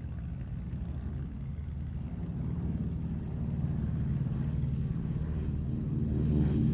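Douglas DC-3's twin radial piston engines and propellers running as the plane approaches: a low rumble with a steady pitched hum that grows gradually louder.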